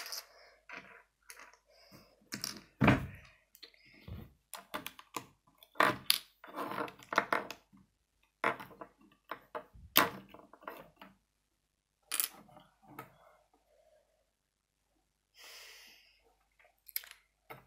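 Plastic Lego bricks clicking and knocking as they are picked up, pressed together and set down on a wooden tabletop, in irregular sharp clicks with a lull of a few seconds after about eleven seconds.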